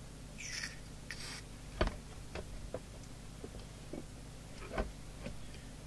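Two short hisses of Servisol Super 10 aerosol switch cleaner sprayed through its extension straw into the meter's service hole, to clean a dirty track. After them come a series of clicks and knocks, the loudest two about three seconds apart.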